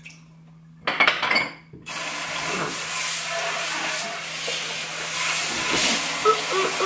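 Kitchen pull-down faucet turned on about two seconds in, water spraying into the sink basin with a steady hiss. Just before, a short clatter, as of a plastic cup set down in the sink.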